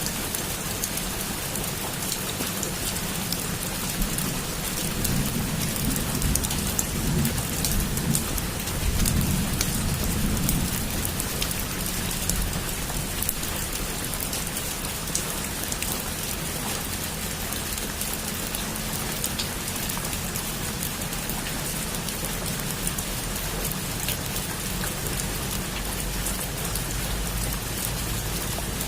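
Heavy rain pattering steadily on a roof, with dense drop impacts. A low rumble of thunder swells and fades from about five to eleven seconds in.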